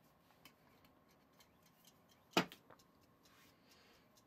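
Kitchen timer ticking faintly just after being set. There is one sharp knock about halfway through as the timer is set down.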